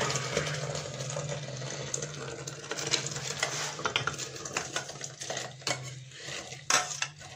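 Cooked mustard seeds and their liquid sliding out of a steel pot into a glass blender jug, with scattered clinks and scrapes of metal against metal and glass. The clinks grow sharper and more frequent in the second half, over a steady low hum.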